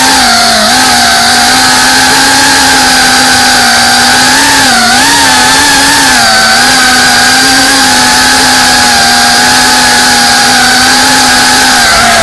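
FPV quadcopter's electric motors and propellers buzzing loudly, recorded on the drone itself. The pitch wavers up and down as the throttle changes, and the sound cuts off abruptly near the end.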